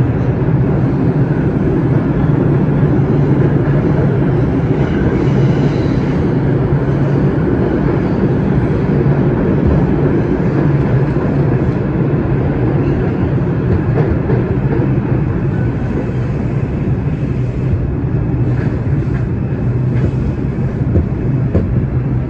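New York City subway train running at speed, heard from inside the car: a steady low rumble and hum of wheels on rail, with a few scattered clicks over the rail joints.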